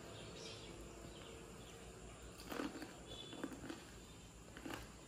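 Faint crunches of crisp panipuri shells being cracked open and bitten, a few short crackles from about halfway through to near the end.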